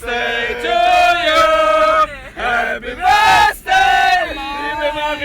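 A group of voices chanting and bawling a song together, loud, held notes with short breaks between phrases.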